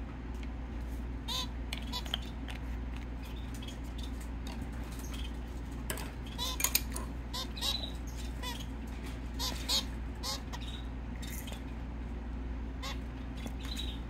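Zebra finch giving short nasal calls every second or so, mixed with light clicks and taps, over a steady low hum.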